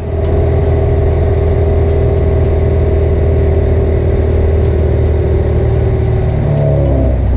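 Piper Arrow's piston engine and propeller running steadily, heard from inside the cabin on final approach to land. About six and a half seconds in the engine note falls as power is taken off for the landing.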